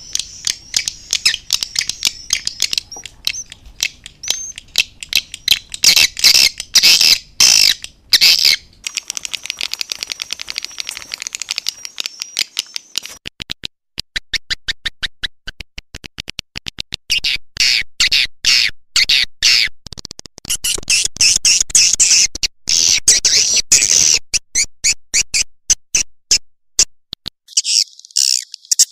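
Swiftlet calling sound: a recording of edible-nest swiftlets' rapid high clicking and chirping twitter, in bursts of dense chatter, the lure played from a swiftlet house to draw swiftlets in.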